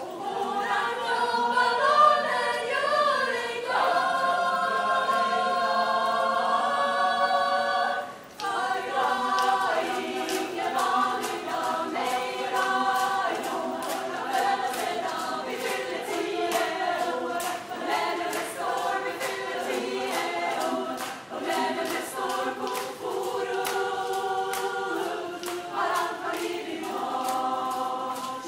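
An a cappella choir singing in harmony: long held chords at first, a brief break about eight seconds in, then a livelier section over a steady sharp beat of about two a second.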